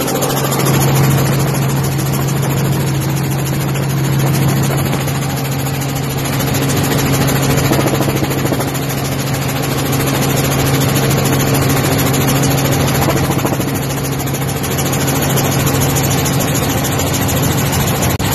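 Light helicopter in flight heard from inside the cabin: the engine and rotor run with a steady low hum over a constant roar of wind and machinery.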